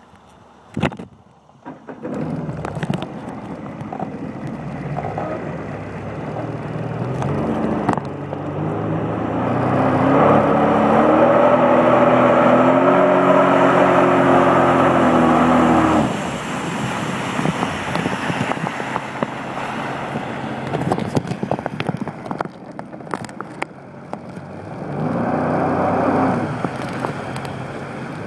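Sea-Doo personal watercraft engine running, with water and wind noise. It picks up about two seconds in, rises in pitch under throttle to a loud steady high stretch, then drops back sharply and runs lower before rising again near the end.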